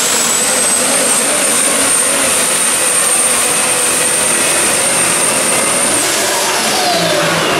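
Super stock diesel pulling truck at full power dragging a weight-transfer sled: a loud, steady engine with a high turbocharger whistle that edges slightly upward. About six seconds in the whistle cuts off and the engine's pitch falls away.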